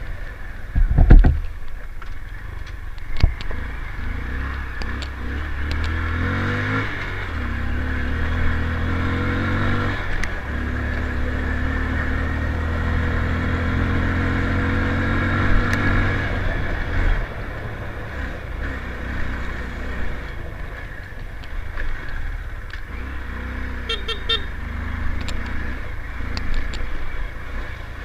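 Motorcycle engine running while being ridden, its pitch rising and falling with changes of speed. Two loud thumps about one and three seconds in.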